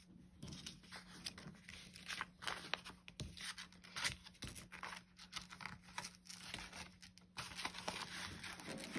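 Paper banknotes and a cash envelope being handled: bills rustling and sliding as they are tucked into the envelope and counted, with small scrapes and taps on the table.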